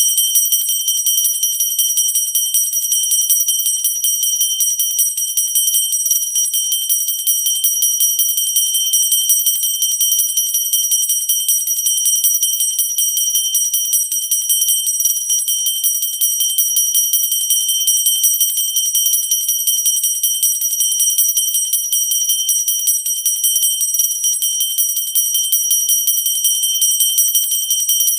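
Pooja bell rung continuously, its clapper striking rapidly and evenly so that the high, bright ring never dies away.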